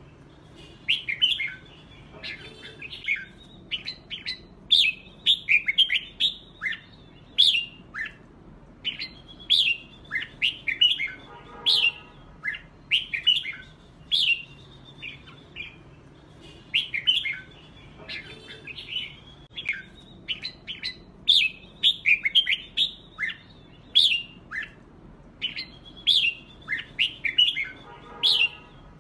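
Red-whiskered bulbuls singing against each other, quick short bright whistled phrases following one another almost without pause. A lower, harsher call cuts in about every nine seconds.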